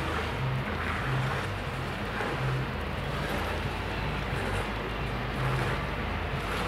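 Diesel locomotive engine idling, a low uneven throb of about two pulses a second under a steady rumble.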